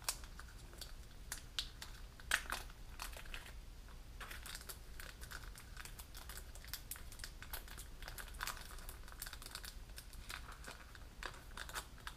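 Small clear zip-lock plastic bag crinkling in the hands as it is opened and handled, with irregular crackles throughout and one sharper snap a little over two seconds in.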